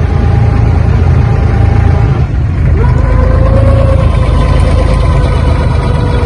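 Abra water taxi's diesel engine running with a loud, steady low rumble as the boat comes in to dock. Faint steady higher tones ride over it from about halfway through.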